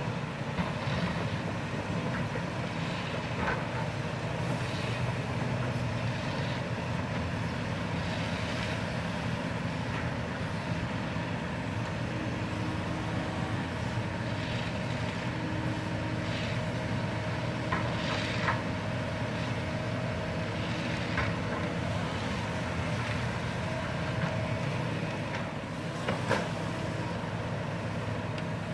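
Kobelco crawler excavator's diesel engine running steadily under load, with a hydraulic whine coming and going as it works the boom and bucket. Scattered short clanks and knocks of the bucket on gravel and stones.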